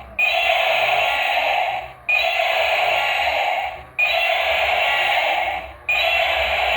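A looped electronic sound effect: a noisy, buzzy tone that starts suddenly, fades after under two seconds and repeats about every two seconds.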